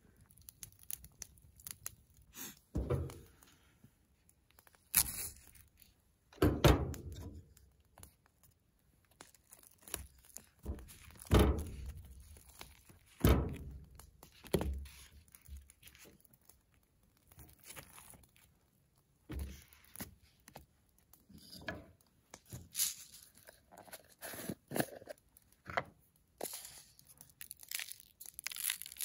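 A run of irregular thuds and knocks mixed with crunching and rustling, a dozen or so separate noises a second or more apart; the loudest come about six and eleven seconds in.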